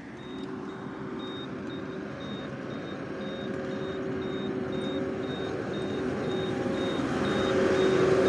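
Skid steer engine running, growing louder toward the end, with a high electronic warning beep repeating two or three times a second. The owner ties the beeping to a battery problem that makes the machine cut off.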